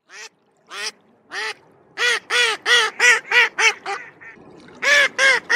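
Mallard hen quacking. A few spaced quacks come first, then a quick run of about nine quacks that grow shorter and softer. Another loud run begins near the end.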